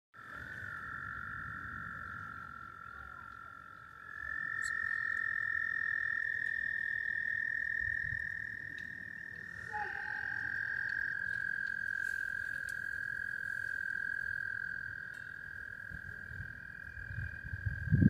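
Frogs calling in long, steady trills, several overlapping at slightly different pitches; one drops out and another joins about four seconds in.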